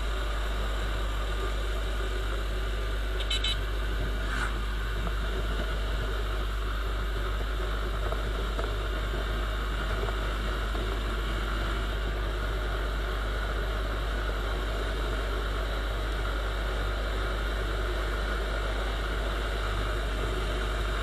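Viper 150 motorcycle running at a steady cruising speed, engine note holding even with no change in revs, under steady wind rumble on the bike-mounted microphone.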